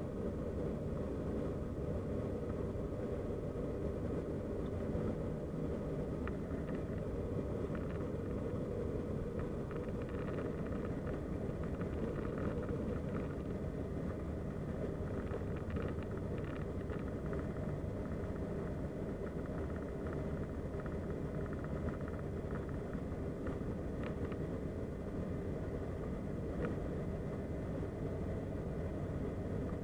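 Steady low drone of a turboprop airliner's engine and propeller, heard from inside the passenger cabin in cruise.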